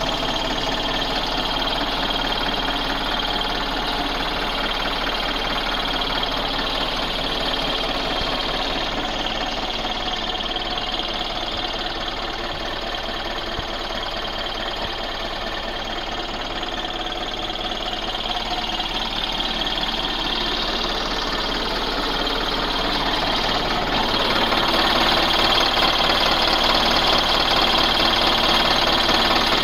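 Hyundai excavator's Cummins four-cylinder diesel engine running steadily at idle, just after a full overhaul. It gets louder near the end.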